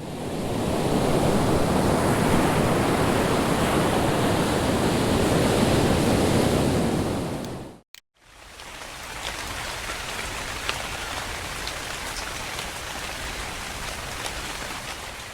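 Two recorded ambient noise tracks played one after the other. The first fades in as a loud, steady rush heavy in the low end and cuts off about eight seconds in; after a short gap a quieter, hissier noise track with faint crackles starts.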